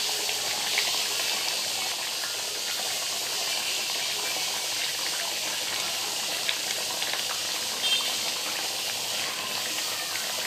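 Egg and potato curry gravy boiling in a kadai: a steady bubbling hiss with a few small pops.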